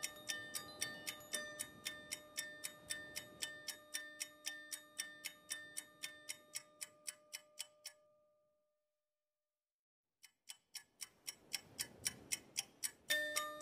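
Background music: a ticking, clock-like beat about four ticks a second over a few held notes. It fades out about eight seconds in, is silent for about two seconds, then the ticking comes back.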